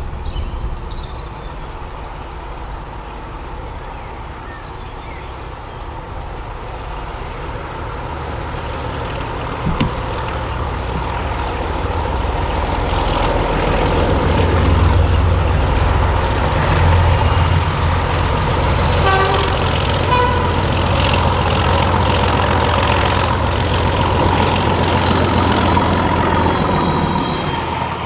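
Class 31 diesel-electric locomotive's English Electric V12 engine, loud and building as the train approaches under power. The locomotive's horn sounds briefly about two-thirds of the way through.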